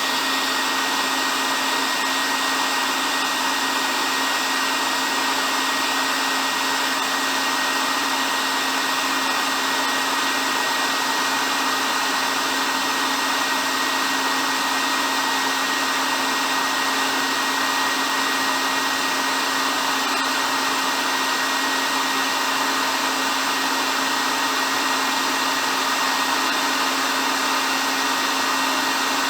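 Hair dryer running steadily: an even airy rush of blown air with a steady motor hum and a faint high whine.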